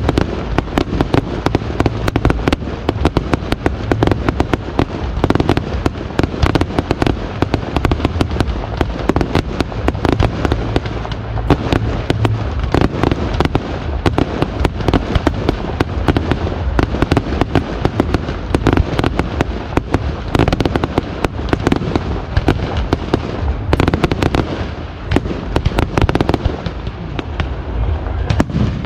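Professional fireworks display: shell bursts and crackling mortars going off in rapid, overlapping succession, many bangs a second with a deep rumble beneath.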